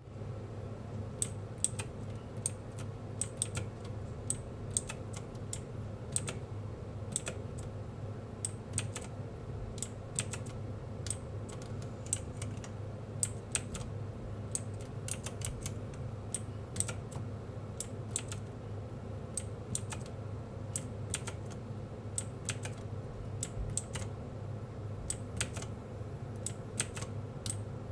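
Robot KB20 mechanical keyboard with blue switches being typed on: uneven keystrokes, each a sharp click, about two or three a second, over a faint steady hum.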